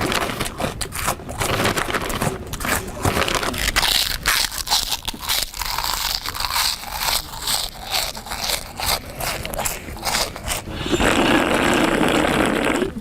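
Loud, deliberately noisy eating: crunching and crackling food with scraping and rustling, a dense run of sharp clicks. Near the end a louder continuous rasping noise lasts about two seconds.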